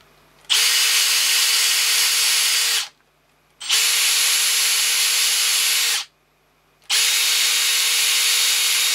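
Cordless drill spinning a drill-mounted wire stripper to strip cable insulation. It runs at a steady speed in three separate bursts of about two seconds each.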